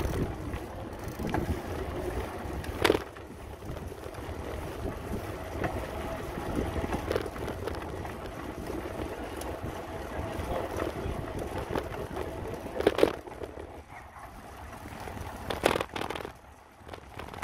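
Bicycle rolling along rough, cracked asphalt with wind rushing over the microphone, broken by a few sharp knocks and rattles, two of them close together near the end.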